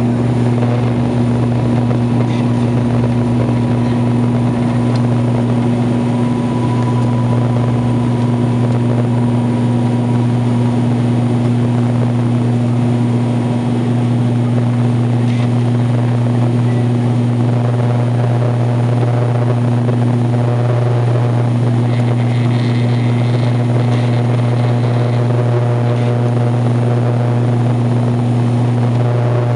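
Cabin drone of an ATR 72-500's twin turboprop engines and six-blade propellers at takeoff and climb power: a loud, steady low hum with a second steady tone above it, as the aircraft leaves the runway and climbs. A few higher tones join the hum about halfway through.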